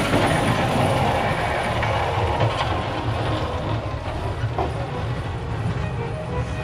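Tractor fitted with a front snowplow blade running as it plows the snowy road: a steady engine rumble with metal clatter, slowly fading as it drives away.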